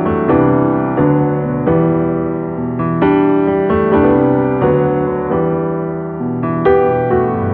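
Background piano music: soft chords struck about every two-thirds of a second, each one fading before the next.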